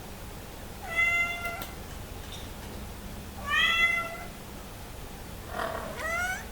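A Somali cat meowing three times, about two seconds apart, the last call rising in pitch. The cat is hungry and asking to be let into the living room.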